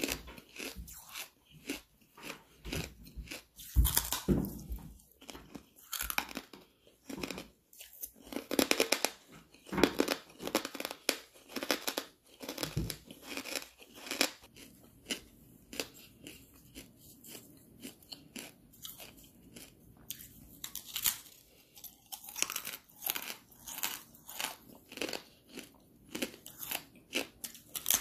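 Hard charcoal being bitten and chewed, close to the microphone: dense, sharp crunching as the chunks break and grind between the teeth, with several louder bites in the first half.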